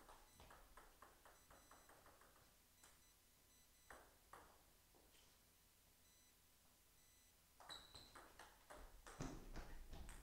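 Table tennis ball clicking off rackets and table in a quick rally, about five hits a second for the first two seconds. A couple of single clicks follow, then a cluster of ball bounces and knocks with a brief high squeak near the end.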